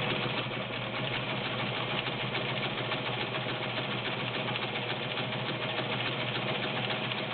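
Vintage White model 614 sewing machine running steadily at speed, its motor humming under a fast, even needle-and-feed clatter, sewing a zigzag stitch.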